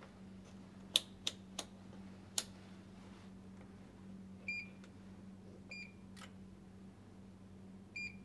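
Keys on a Fluke 1664 FC multifunction installation tester clicking four times in quick succession, then the tester giving three short, high beeps over the next few seconds as it runs a manual test. A steady low hum lies underneath.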